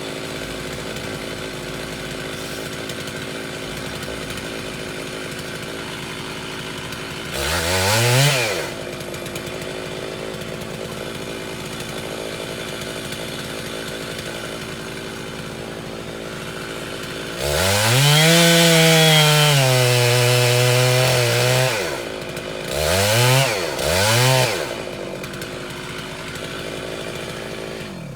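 Two-stroke chainsaw idling, revved briefly about seven seconds in, then run at high speed for about four seconds with its pitch dropping partway through, followed by two quick throttle blips near the end.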